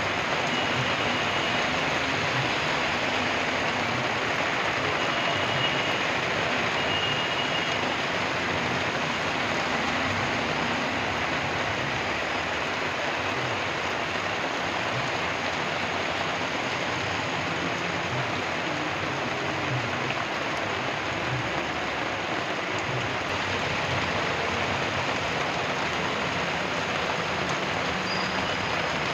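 Heavy rain pouring steadily onto a street, a constant even hiss, with the low sound of vehicles passing on the wet road underneath.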